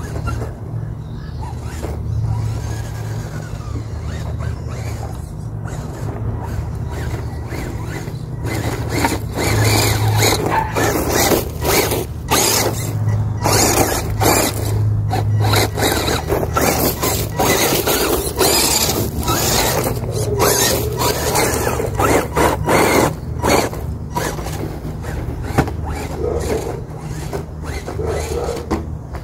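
CR12 Ford RC crawler truck driving over a dirt mound. Its small electric motor and gears whine while the tyres scrape and crunch through dirt and pine needles. The sound is loudest through the middle stretch, as the truck climbs close by.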